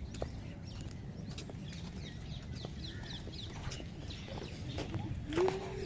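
Birds chirping in many short, quick notes over a steady low background rumble, with one louder call about five seconds in.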